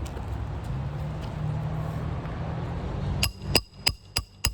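A steady low rumble. About three seconds in, it gives way to a quick run of five hammer strikes driving roofing nails into an asphalt shingle, each with a sharp metallic ring.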